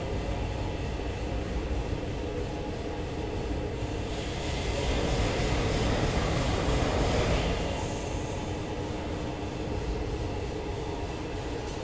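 Steady low rumbling background noise, like machinery or traffic, that grows louder for a few seconds in the middle and then settles back.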